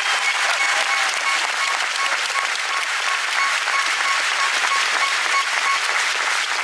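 Arena crowd applauding steadily. Over it, a short tone repeats about three times a second and stops near the end.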